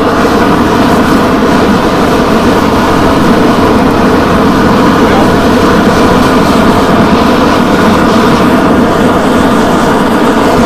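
A forge running with a loud, steady, unbroken roar while steel heats in it.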